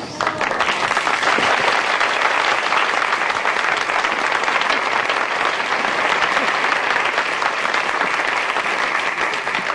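Church congregation applauding, a steady sustained clapping that thins out near the end.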